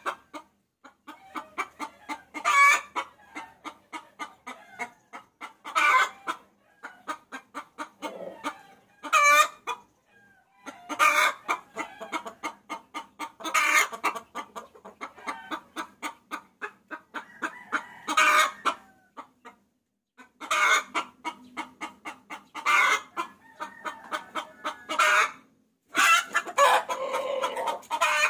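A hen cackling to call a rooster: a rapid run of clucks, several a second, broken every few seconds by a louder drawn-out call, with a few short pauses.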